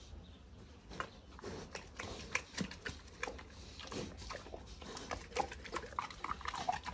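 Domestic pig eating pieces of watermelon from the straw, with irregular chewing and crunching clicks.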